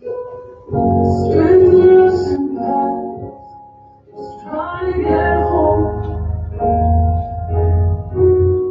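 A song begins: a woman singing over instrumental backing, starting softly and filling out about a second in.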